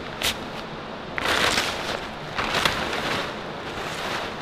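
Woven plastic tarp rustling and crinkling as it is gripped and pulled, in several swishing bursts.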